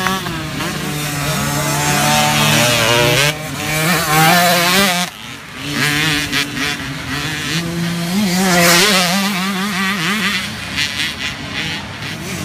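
Small youth motocross bikes revving as they ride past and away along a dirt track, their engine pitch rising and falling with the throttle. The sound dips briefly about five seconds in, then another bike's engine picks up.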